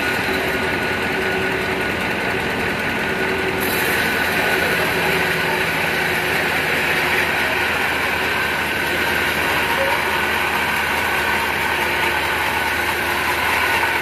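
Band sawmill running steadily, its blade cutting lengthwise through a very large log, with a dense hiss over a steady machine hum. The hiss turns brighter about four seconds in.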